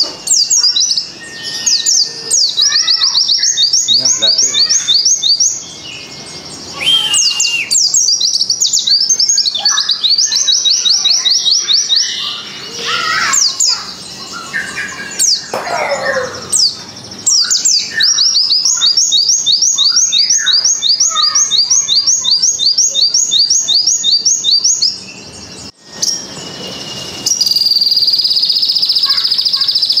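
A caged pleci (white-eye) singing in long, rapid runs of high, sharp repeated notes, a phrase the keeper calls a long gelatik-style 'tembakan', broken by short chirps and glides. It is in full song, which bird keepers call gacor. Near the end a sogon takes over with a steadier, buzzing high song.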